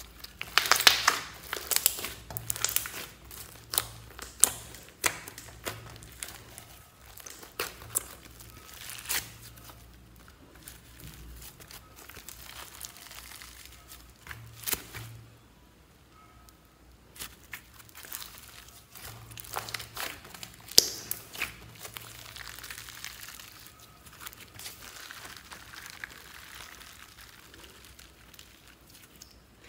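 Hands squeezing and stretching a large glittery slime, its sticky surface giving off quick crackling, popping clicks. The clicks come thickest in the first ten seconds, thin out for a moment past the middle, then pick up again.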